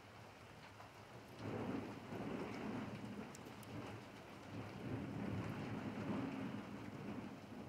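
Steady rain falling on pavement, with scattered drop ticks. A low rumble of thunder starts about a second and a half in and keeps rolling, swelling and easing, to the end.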